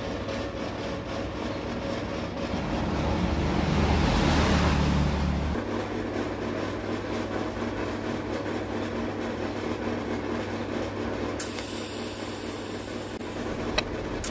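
Steady machine hum with a low electrical drone, swelling louder for a few seconds about three seconds in. A brighter hiss joins suddenly near the end, with a couple of sharp clicks.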